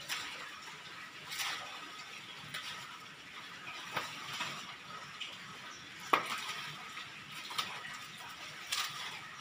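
Scissors snipping betel leaves off a climbing vine: about half a dozen short, sharp metallic snips spaced a second or two apart, the loudest about six seconds in, with the leaves rustling as they are handled.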